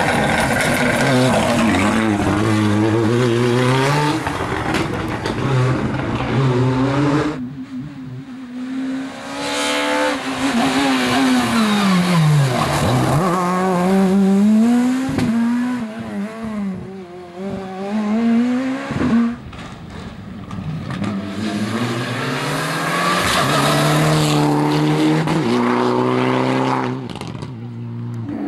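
Rally cars at full throttle, engines revving up and dropping back in steps through quick gear changes, with a few sharp cracks. The sound cuts abruptly between passes about 7 s in and near the end.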